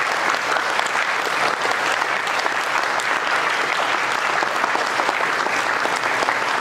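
Audience applauding steadily, a dense, even clapping that fills the hall.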